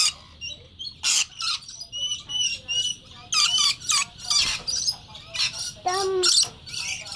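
Scaly-breasted lorikeets calling at close range: a rapid string of short, shrill screeches and chatter, a few every second.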